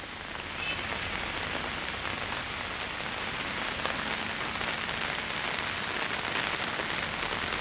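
Steady rain pattering on an umbrella held overhead, an even hiss with scattered drop ticks.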